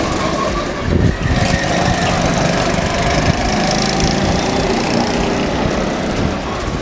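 Go-kart engines running as the karts drive around the track: a steady engine drone whose note slowly falls in pitch. There is a short thump about a second in.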